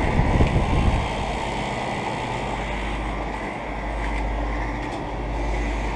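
Outdoor central air conditioner condenser units running: a steady hum of compressors and whir of condenser fans, with louder low rumbling in the first second.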